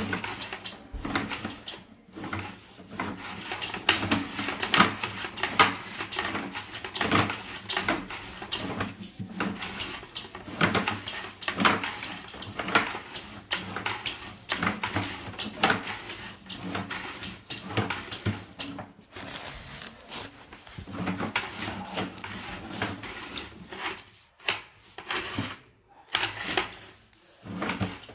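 Sewer inspection camera's push cable being fed by hand down a plumbing stack into the sewer line, making a dense run of clicks, knocks and rattles with a few short pauses.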